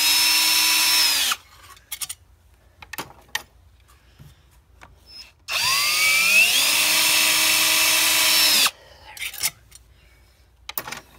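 Power drill spinning a quarter-inch nut driver to back out long hex-head bolts from a pump motor housing. It runs twice: a short run that stops about a second in, then a longer one of about three seconds starting halfway through, its whine rising as it spins up and then holding steady. Small clicks of handling come between the runs.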